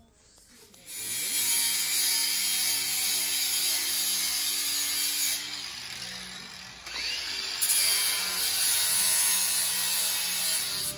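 Cordless angle grinder grinding on a motorcycle's steel side stand. It starts about a second in, eases off a little past halfway, spins back up and bites again.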